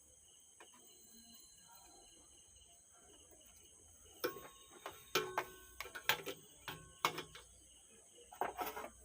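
A steady faint high chirring of crickets, then from about four seconds in a string of sharp clicks and taps with brief metallic ringing, from small hand tools and parts being handled while refitting resistors on an amplifier circuit board.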